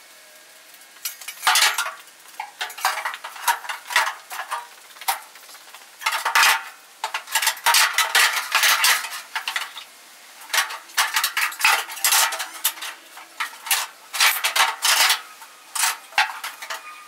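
Steel roll cage tubes and mounting plates clanking and scraping against the car's thin sheet-metal body while the half cage is set in place: an irregular run of sharp metallic clinks and knocks.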